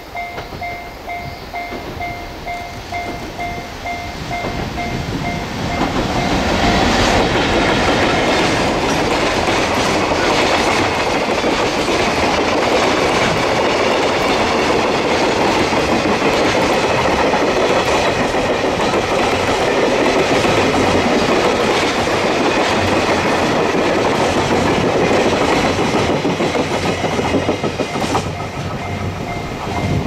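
Electric-hauled container freight train passing close by, the wagons' wheels clicking in a steady rhythm over the rail joints. It gets loud about six seconds in as the locomotive arrives, stays loud while the long string of container flatcars rolls past, and fades near the end as the last wagon goes by.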